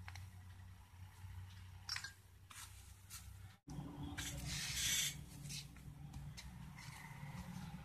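Faint rubbing and rustling as a circuit board and its wires are handled, with small clicks, over a low steady electrical hum. A louder rustle comes about halfway through.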